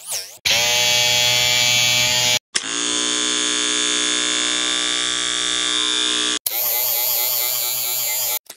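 Electric shaver buzz put through audio-editing effects, heard as a string of separately altered versions with short gaps between them. After a brief wavering tail, there is a steady buzz for about two seconds, then a longer steady buzz of nearly four seconds that opens with a short thump, then a buzz that wobbles quickly up and down in pitch.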